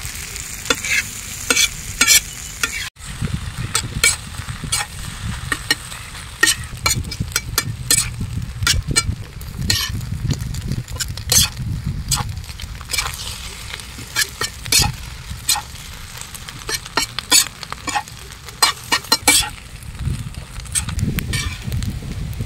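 Metal spatula scraping and clacking against a large flat tawa as rice with mutton liver masala is stir-fried, with a steady sizzle underneath. The clacks come irregularly, several a second.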